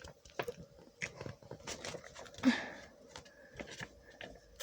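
Irregular light clicks and brief rustles of small objects being handled, with one slightly louder knock about halfway through.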